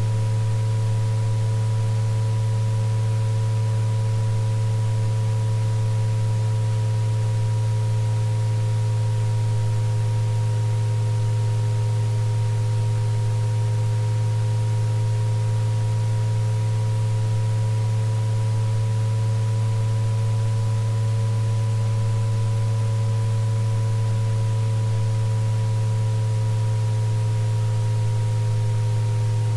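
Synthesized tinnitus-relief sound-therapy tones. A loud steady low hum sits under several fainter higher tones that drift slowly up and down in pitch, over a faint even hiss.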